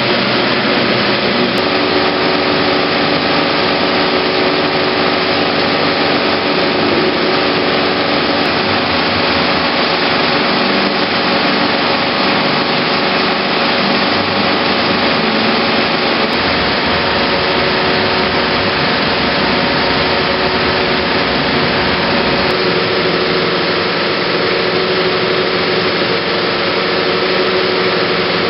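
IMAX Dome 70 mm film projector running, a steady mechanical whir with several steady tones, as film feeds over its rollers to and from the horizontal platter.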